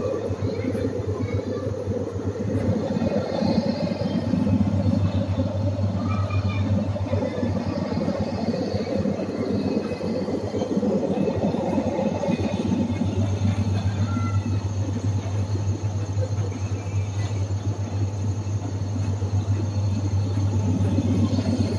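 Khoya making machine running: a steady hum and rumble from its motor-driven scraper stirring milk in the stainless steel pan.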